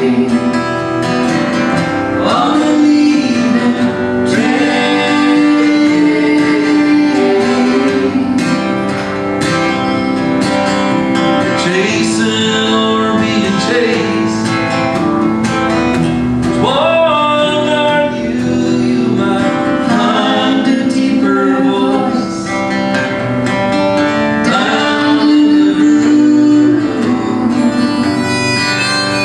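Folk song played on a strummed acoustic guitar with singing; a harmonica comes in near the end.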